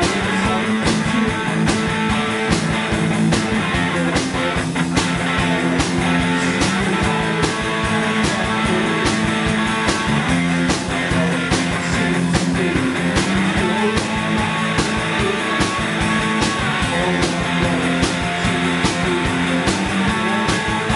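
Live rock band playing: distorted electric guitar, bass guitar and a Mapex drum kit, with cymbals marking a steady beat throughout.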